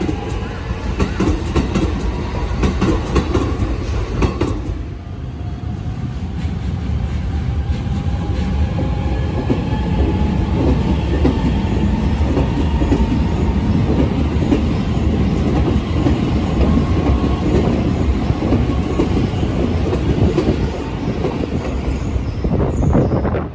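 Electric commuter trains passing a station platform: a Keikyu train's wheels clatter over rail joints in quick clicks for the first few seconds, then a Keisei train runs past close by with a steady heavy rumble and a faint whine that rises slightly. The rumble cuts off abruptly just before the end.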